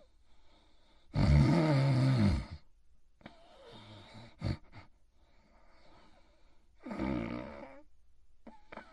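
Snoring in deep sleep: a long, loud snore about a second in whose pitch drops at the end, then soft breaths, a short sharp snort about halfway through, and a second, shorter snore near the end.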